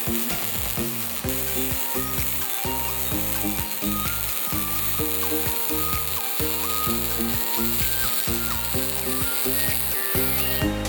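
Pulsed MIG welding arc giving a steady sizzling hiss that stops near the end, with background music playing throughout.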